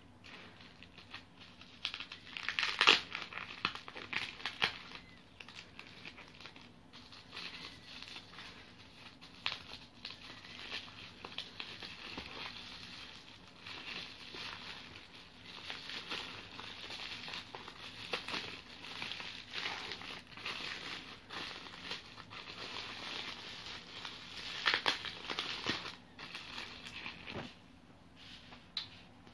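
Bubble wrap crinkling and rustling as it is handled and pulled off packaged albums. The crinkling comes in irregular bursts, loudest about three seconds in and again near the end.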